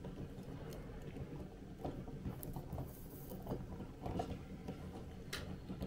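Can of baked beans heating on a titanium alcohol stove, making a handful of irregular soft thumps and ticks over a low steady rumble.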